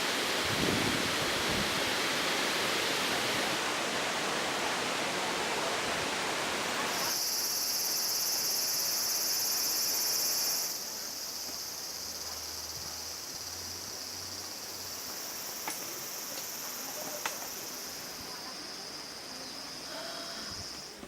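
Nachi Falls roaring as a loud, even rush of falling water. About seven seconds in it gives way abruptly to a quieter scene dominated by a steady, high-pitched insect drone.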